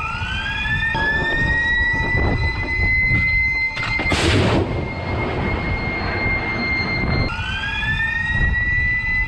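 Rolling Airframe Missile launcher's drive motors whining as the mount slews and elevates: a whine that rises in pitch and then holds steady, breaking off and rising again near the end. Under it is a low rumble, and there is a short loud rush of noise about four seconds in.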